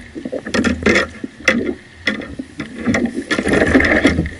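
Irregular knocks and clatter of fish and gear being handled on a sit-on-top kayak, over a low rumble.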